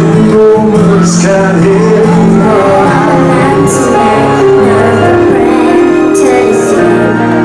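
A girl singing into a microphone over backing music, with held, sustained notes.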